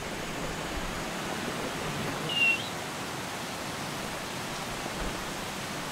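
Steady rushing of the Tiger Falls waterfall. A brief high chirp sounds about two seconds in.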